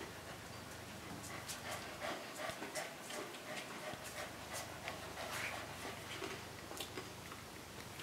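Young puppies moving about: an irregular patter of short soft clicks and scratches, with a few faint short squeaky notes about two to three seconds in.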